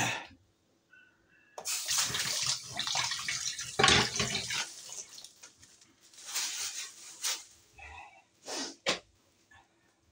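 Water running from a tap in two spells, one of about three seconds and a shorter one of about a second, with a few short knocks.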